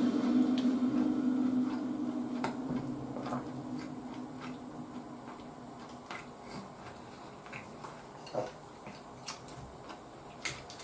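Quiet eating sounds: chewing with scattered small clicks and taps, and a sharper click of chopsticks near the end. Background music fades out in the first two seconds.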